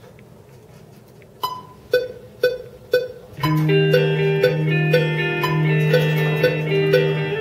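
Electric guitar picked without distortion: four single notes about half a second apart, then, about halfway through, a fuller ringing riff of repeated notes over a held low note.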